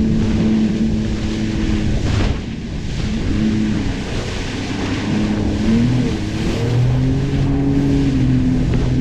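Jet ski engine running at speed over choppy sea, its pitch repeatedly falling and rising, with spray hissing and splashing off the hull.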